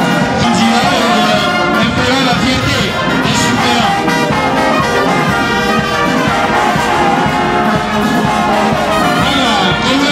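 Brass band music playing continuously, a march-like ensemble of brass instruments.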